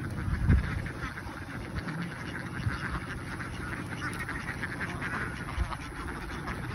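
A large flock of domestic ducks quacking and chattering at once, many overlapping calls making a continuous din, with a single low thump about half a second in.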